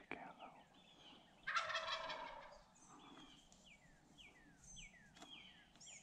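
A wild turkey gobbles once at close range, about a second and a half in: a loud, rapid, rattling call lasting about a second.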